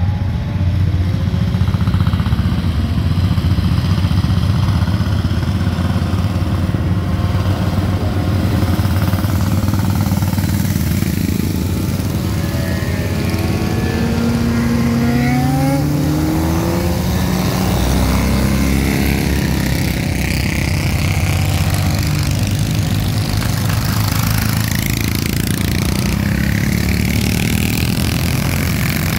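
A pack of classic motorcycles passing through a bend one after another, their engines overlapping in a steady drone. About halfway through, several engines rise in pitch as the bikes accelerate out of the corner.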